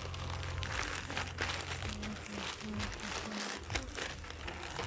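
Plastic courier mailer bags crinkling and rustling as they are pulled open and handled by hand, a dense run of small crackles.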